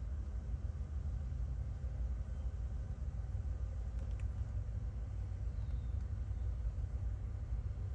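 Diesel locomotives of a loaded coal train giving a low, steady rumble.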